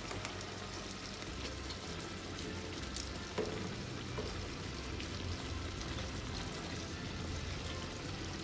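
Faint, steady sizzling of shrimp frying in butter in a pan, with a light knock about three and a half seconds in.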